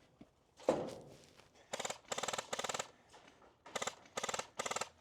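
Airsoft rifle firing short full-auto bursts, about six in two clusters, each a fast rattle of shots lasting a few tenths of a second. A sharp thump with a brief falling tail comes about a second in.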